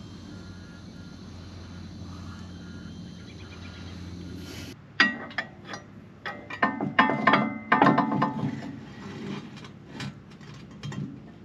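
A steady low hum, then, after an abrupt change about five seconds in, a run of irregular metallic clicks and clinks from hand tools working on tractor drain plugs and fittings.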